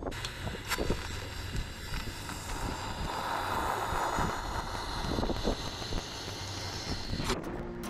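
TIG welding arc hissing steadily as a stainless steel vent pipe is welded into a hole in the boat's steel plating, under wind rumbling on the microphone.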